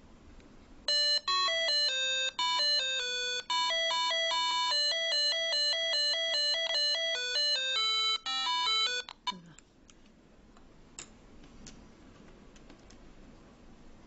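A ringtone melody of short pitched electronic notes plays for about eight seconds, starting about a second in, and stops abruptly. A few faint clicks follow.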